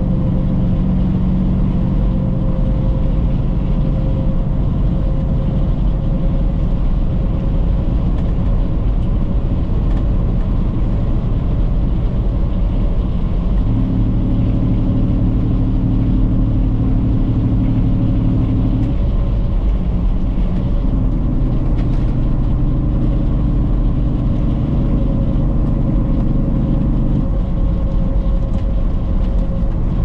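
Semi truck's diesel engine running, heard from inside the cab as a steady low drone; its note grows stronger for about five seconds around the middle, and again soon after.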